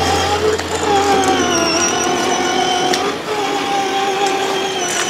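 Electric motor and gearbox of a battery-powered kids' ride-on car whining as it drives, the pitch wavering a little and the whine breaking off briefly a couple of times.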